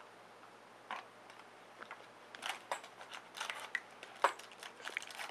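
Trading cards and foil card-pack wrappers being handled: scattered crinkles and clicks, busier from about two seconds in, with one sharp click a little after four seconds.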